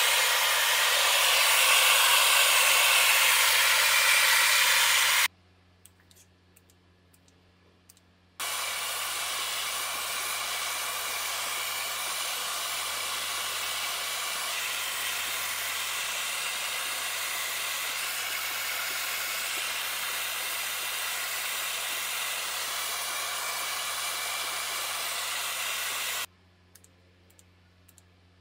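Handheld gas torch flame, a steady roaring hiss, heating the aluminium engine case of a BMW R90/6 boxer to about 275 degrees so it expands enough to pull the front bearing carrier. It runs louder for the first few seconds, stops for about three seconds, then runs steadily again until shortly before the end, when a few faint clicks follow.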